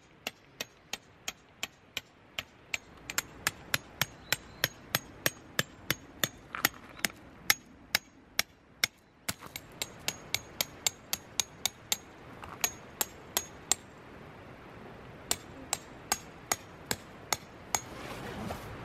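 Tent pegs being hammered into the ground: a steady run of sharp strikes, about three a second, with a few short pauses.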